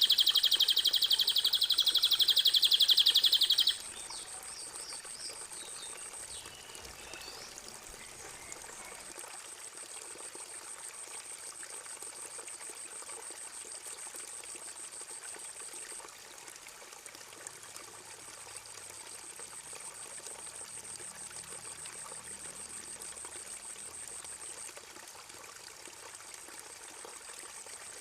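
A songbird's loud, rapid high trill cuts off suddenly about four seconds in. It leaves a fainter steady sound of running water, with a very high, fast-pulsing buzz that drops out a few times and a few faint bird chirps soon after the cut.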